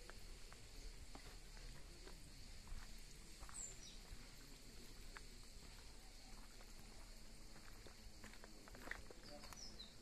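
Faint footsteps on a cobblestone lane, with a short falling bird chirp a few seconds in and a few quick chirps near the end.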